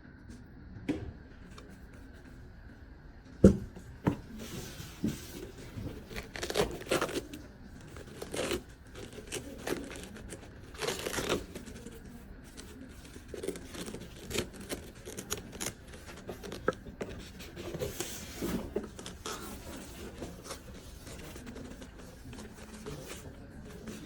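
Packaging being opened and handled: irregular rustling, crinkling and tearing, with one sharp knock about three and a half seconds in.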